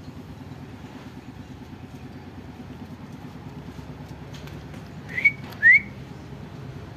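Two short, loud upward whistles about half a second apart, over a steady low rumble.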